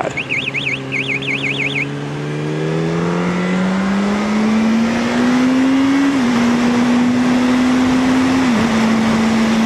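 Yamaha R1's inline-four engine pulling up through the gears: the revs climb steadily for about six seconds, dip briefly at an upshift, climb again, dip at a second upshift, then hold steady, with wind rush. A warbling electronic tone sounds in the first two seconds.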